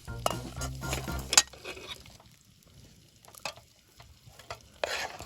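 A cooking utensil stirring and scraping food in a pot or pan, with scattered clinks. Background music plays at the start and ends about a second and a half in.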